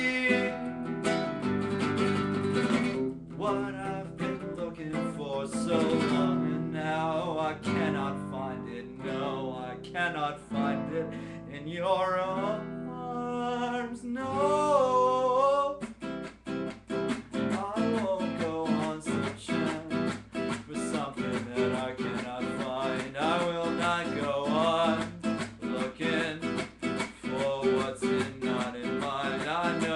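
A man singing to his own steadily strummed acoustic guitar. About halfway through the voice holds a long wavering note, and after that the strumming gets quicker and busier.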